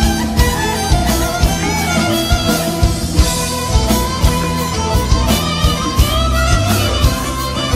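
Background music with a steady drum beat and plucked guitar.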